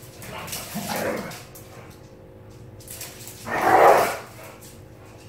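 Two dogs wrestling in friendly play, one giving short rough barks: a weaker one about half a second in and a louder one about three and a half seconds in.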